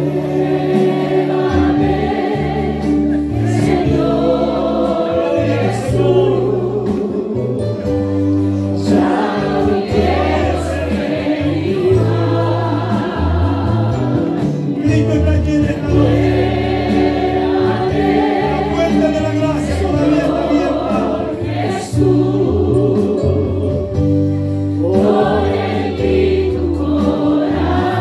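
Christian worship song: several voices singing together over instrumental accompaniment with sustained bass notes, continuous throughout.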